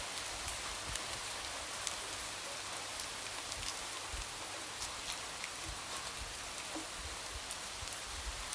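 Steady light rain, an even hiss with scattered drops tapping against a window pane.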